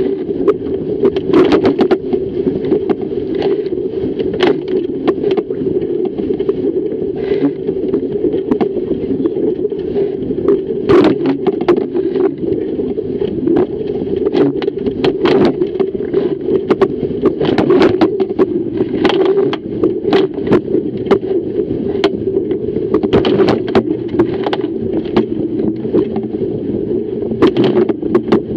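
Fireball dinghy hull driving upwind through chop: a steady rush of water along the hull, broken by many sharp slaps and splashes as the bow hits waves and throws spray over the boat.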